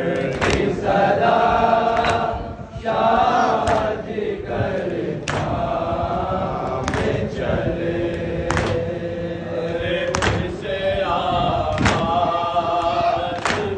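A group of men chanting a nauha together in unison, with a sharp beat about every second and a half from hands striking chests (matam), keeping time with the lament.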